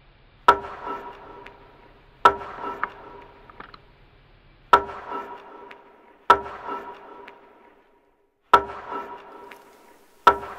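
Six sharp, percussive clicks spaced about two seconds apart. Each one rings out with a short tonal tail that dies away within about a second.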